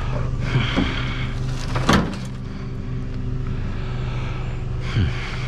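Truck running while driving, its engine a steady low drone, with a loud clunk about two seconds in and another knock near the end, typical of loose cargo shifting in the truck.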